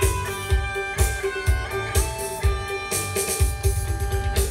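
Guitar music with a steady drum beat, the bass drum hitting about twice a second, played through a car audio system: a Pioneer equaliser feeding a Jensen 100 W x4 MOSFET amplifier.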